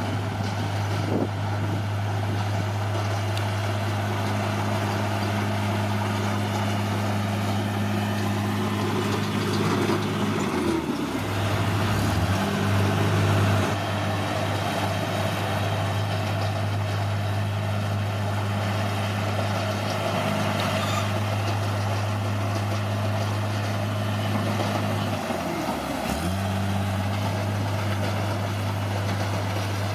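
Bulldozer's diesel engine running steadily, with its pitch dipping briefly and recovering twice: once about a third of the way in and again near the end.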